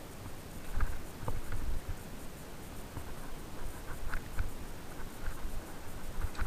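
Mountain bike rattling over a rocky singletrack: irregular clicks and knocks as the tyres and frame hit stones, over a low rumble.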